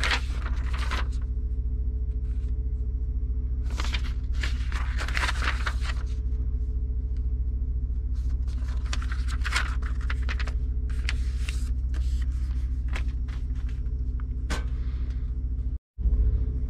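Paper instruction sheets rustling as they are handled and turned, in several short bursts, over a steady low hum.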